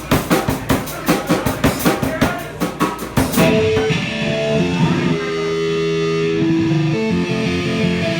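Rock band playing: even, quick drum hits, about four a second, for the first three seconds, then guitar comes in with held notes and chords.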